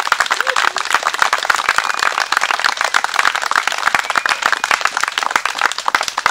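A group of people clapping together in dense, steady applause, with a few short calls standing out over it.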